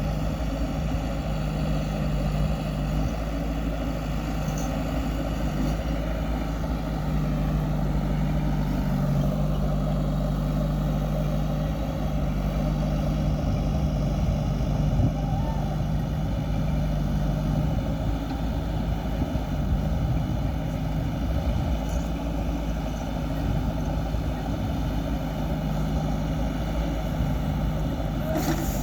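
Heavy diesel machinery engine running steadily at a low, even hum, its note growing stronger for a few seconds about a quarter of the way in.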